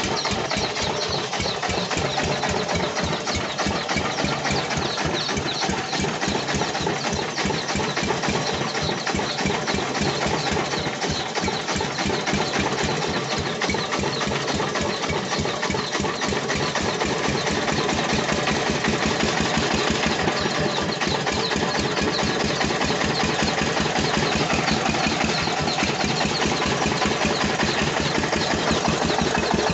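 Diesel engine running steadily with a rapid, even knocking beat. It is an engine being tuned for lack of power, and it gets a little louder in the second half.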